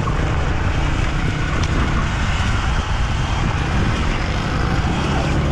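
Combustion enduro motorcycle engines running along a dirt trail, one ahead and one behind, as a steady low drone mixed with wind and trail noise.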